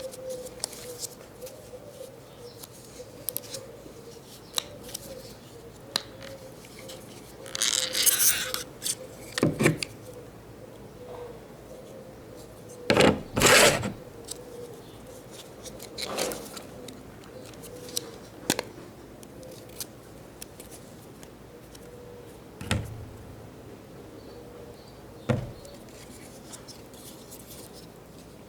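Scattered clicks, scrapes and knocks of hands and small hand tools working on the parts of a fuel pump assembly, loudest as two sharp clatters about halfway through. A faint steady hum runs underneath.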